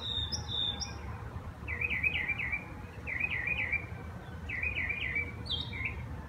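A songbird singing: a run of short, high, repeated chirps, then three quick warbling phrases about a second and a half apart, and a single higher note near the end.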